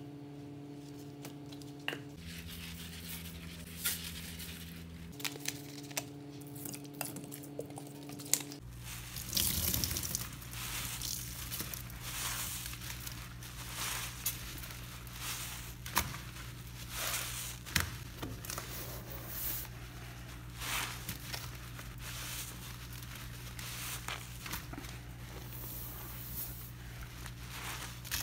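Soapy dish sponges coated in washing powder being squeezed and scrubbed wet in a stainless steel sink: repeated crackling, squishing squeezes. The first third is quieter, a steady hum with a few light taps.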